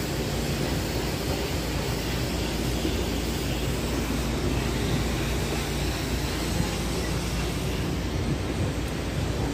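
Steady city street noise, mostly passing traffic.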